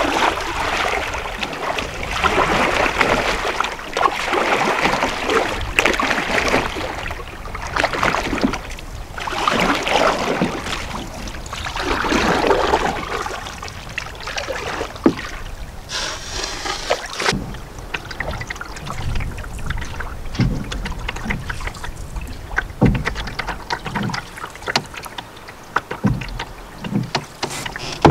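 Canoe paddle strokes splashing and swishing through river water, about one stroke every two seconds, growing fainter after about 13 seconds as the canoe moves off; after that only lower water sounds with scattered small clicks.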